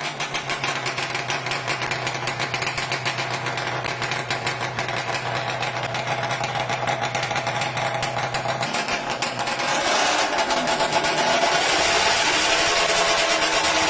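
Classic Yamaha racing motorcycle engine running steadily at low revs, then revved up about nine seconds in and held at a higher, louder pitch.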